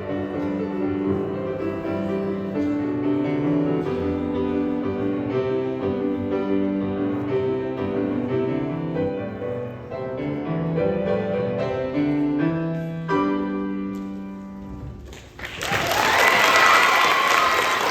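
Solo piano playing the closing bars of a fast piece, ending on a final chord that rings out and fades. Near the end, audience applause breaks out.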